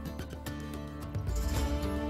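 Background music with a regular beat and bass.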